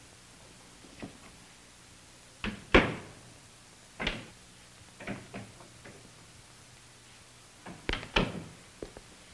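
Hard-soled footsteps on a hard hallway floor, a handful of sharp, echoing knocks at uneven spacing, several in close pairs, the loudest about three seconds in.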